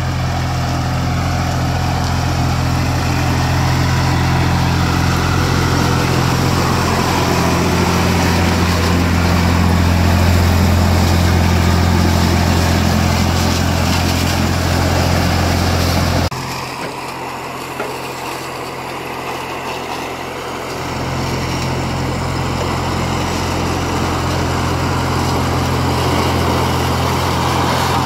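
IMT 542 tractor's diesel engine running steadily while it drives a SIP Tornado 40 corn picker harvesting maize, a deep, even engine hum. About two-thirds of the way through the sound changes abruptly: the deepest part of the hum drops away for a few seconds, then a steady engine sound returns.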